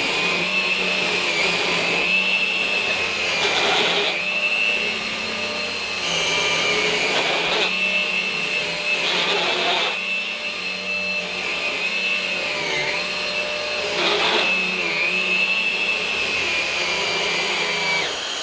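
Numatic Henry Quick cordless stick vacuum running steadily on carpet, its motor giving a high whine, with a louder rush of air every few seconds as the floor head is pushed back and forth.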